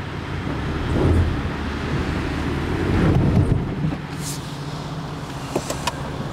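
Vehicle engine running steadily at a low hum, swelling louder twice, about a second and about three seconds in.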